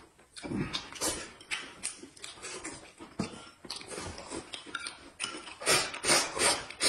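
Noisy eating of braised pork in sauce: wet smacking chews and slurps coming in quick, irregular spurts.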